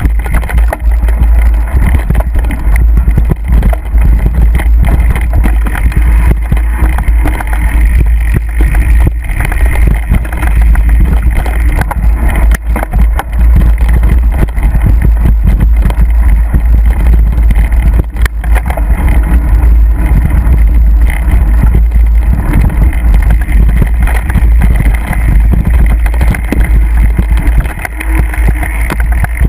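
Heavy wind buffeting on a mountain-bike-mounted microphone, with a continual clatter and rattle of the mountain bike and its mount jolting over a rough dirt trail.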